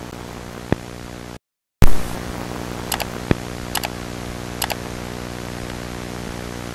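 Steady electrical hum under a hiss of static, with scattered clicks and crackles. The sound cuts out completely for a moment about a second and a half in, then comes back with a loud crackle.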